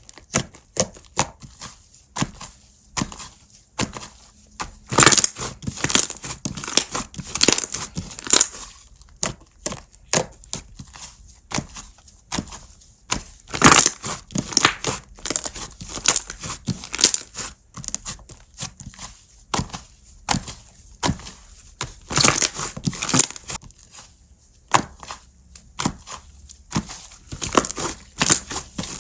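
Slime being squeezed, stretched and pressed by hand, giving irregular clusters of sticky crackling clicks and squishes.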